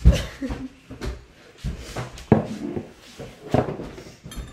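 Several sharp knocks and thuds of people moving about and handling things in a kitchen, with short bits of voice between them.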